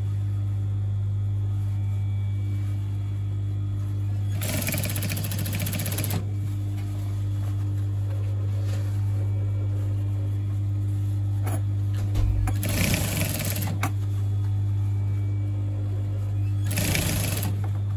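Industrial sewing machine stitching a folded corduroy hem in three short runs: the first about 4 seconds in and lasting under two seconds, a second near 13 seconds and a brief third near the end. A steady low hum runs underneath throughout.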